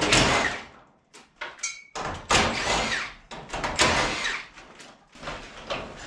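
Metal panels of an old sectional garage door rattling and scraping as they are worked loose and lifted out of the door's tracks. Three loud rasping surges, with a brief ringing note between the first two.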